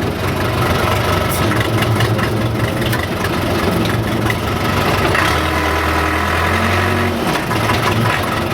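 Case 580C loader-backhoe's four-cylinder diesel engine running steadily as the machine works. Its note drops deeper and stronger for about two seconds, starting a little after five seconds in.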